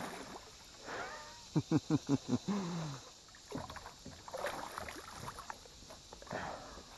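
Arrowed silver carp thrashing and splashing in shallow water beside the kayak. About a second and a half in, a man gives a run of short, excited laugh-like cries ending in one falling cry.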